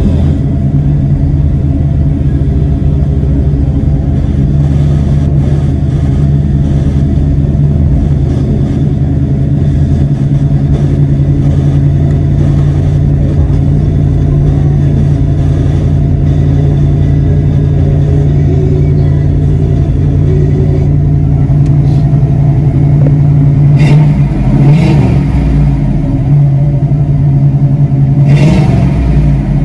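1979 Chevrolet Camaro Z28's 350 V8 idling steadily, heard from inside the cabin, with two brief rises in pitch near the end.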